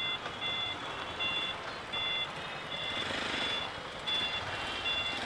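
An electronic beeper sounds short, high beeps about twice a second over a steady haze of road-traffic noise.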